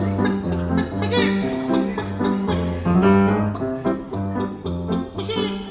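Instrumental music: plucked strings over a bass line that steps from note to note in a steady rhythm.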